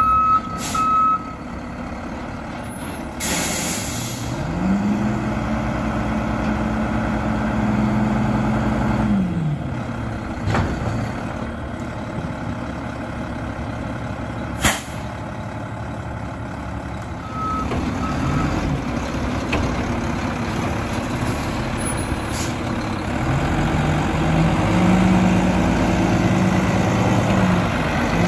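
Mack LR front-load garbage truck: its reverse beeper sounds at the start and again briefly around two-thirds of the way in, and an air brake hisses about three seconds in. Twice the engine revs up, holds a steady higher pitch for several seconds and drops back.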